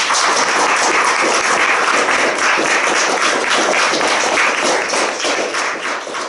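Audience applauding, a dense clapping that starts at once and begins to fade near the end.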